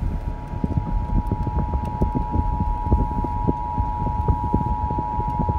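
Emergency Alert System attention signal played through a car radio's speakers: the steady two-tone alert (853 and 960 Hz together) that comes before a warning message, over an uneven crackling rumble of reception noise and cabin noise.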